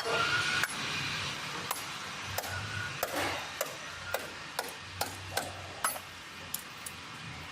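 A series of sharp knocks or taps at an uneven pace, one or two a second, over a faint low hum; the knocks grow fainter toward the end.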